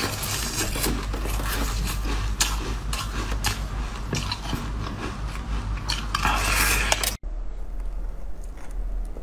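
Frozen basil-seed ice being bitten and chewed close to the microphone: dense crackling and sharp cracking crunches. About seven seconds in the sound cuts off abruptly and quieter, softer sounds follow.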